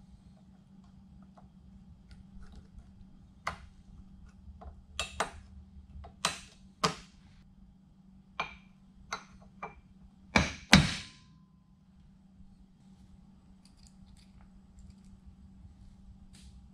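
Irregular sharp metal knocks and clicks of hand tools on a driveshaft U-joint as its new bearing caps and locking keys are fitted. There are about a dozen strikes; the loudest pair comes around ten and a half seconds in, and the last leaves a brief metallic ring. A steady low hum runs underneath.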